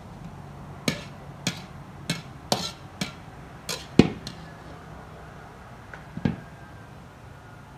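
Metal ladle clanking and scraping against a thin metal wok while stir-frying, with about seven knocks in the first four seconds and one more about six seconds in. A low steady hum runs underneath.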